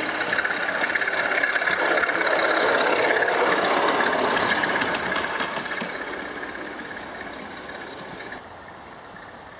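O gauge model freight train running past on the track: a steady rolling noise with light clicking from the wheels. It grows to a peak a few seconds in, then fades as the train moves away, and drops off abruptly near the end.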